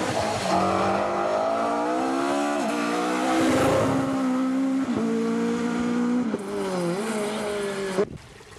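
Rally car engine at full throttle, its pitch climbing and then falling at each gear change and lift, several times over. The engine sound cuts off suddenly about a second before the end.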